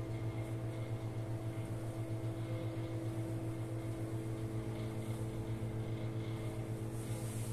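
A steady low mechanical hum with a few fainter steady tones above it, pulsing slightly several times a second.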